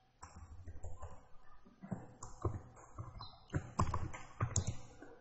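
Computer keyboard typing: irregular, quick keystrokes, thicker in the second half, as code is deleted and retyped.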